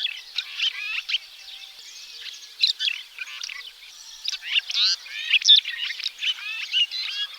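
Red-rumped swallow calls: a busy run of short, quick, overlapping chirps and twitters, some louder notes coming thick in the middle.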